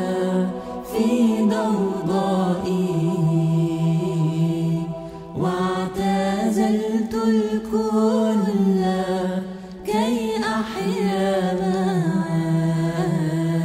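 Slow, chant-like vocal music: singing in long held notes over a steady low sustained note, with brief breaks between phrases about five and a half and ten seconds in.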